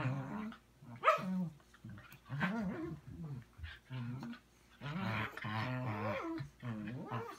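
Two Shetland sheepdogs play-growling at each other as they spar snout to snout, in a run of short, uneven growls with a sharp bark about a second in and a longer growl from about five seconds in. The growls are play, not aggression.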